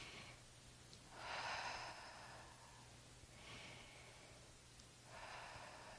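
A woman taking slow, deep breaths, soft airy inhales and exhales each about a second long, the loudest about a second in.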